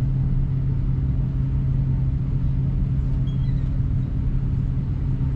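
Steady low hum inside an Airbus A330-200 cabin during pushback from the gate, with no rise in pitch.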